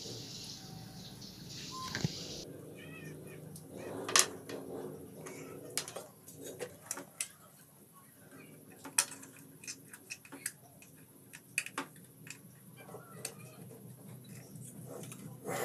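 Scattered sharp clicks and taps of small tools working on a TV circuit board while new capacitors are fitted, the loudest about four seconds in, over a low steady hum. A hiss stops abruptly about two and a half seconds in.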